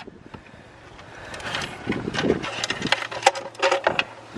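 Broken metal pieces of a snapped connecting rod clinking, scraping and rattling in an oil-soaked engine oil pan as it is rummaged through and tipped, a quick run of light metallic clicks and knocks that starts about a second and a half in.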